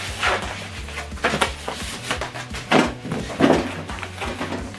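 Polystyrene foam packing blocks scraping and rubbing as they are pulled off a boxed subwoofer, in several irregular bursts, over quiet background music with a steady low bass.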